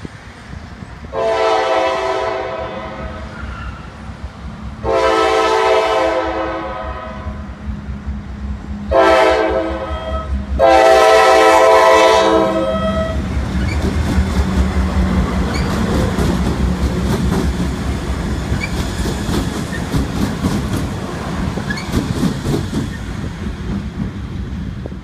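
A Norfolk Southern Dash 9 (C40-9) locomotive leading a set of light engines sounds its horn in the long-long-short-long grade-crossing pattern. The engines then run past with a heavy rumble and wheels clicking over the rail joints.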